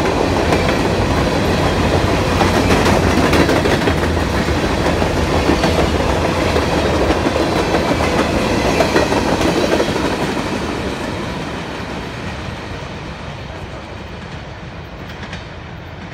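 Grain train of covered hopper cars rolling past at speed, its wheels clattering over the rail joints. The sound fades away steadily from about ten seconds in as the train goes by.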